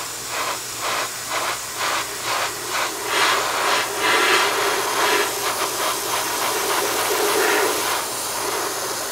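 Gravity-feed airbrush spraying hairspray as a chipping layer, its air hissing. It comes in short pulses about three a second at first, then in longer, louder passes.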